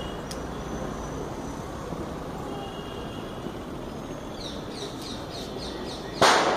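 Birds chirping over steady background noise, with a quick series of falling chirps; about six seconds in, a sudden loud rushing burst that dies away within a second as the firework rocket fires from the homemade launcher tube.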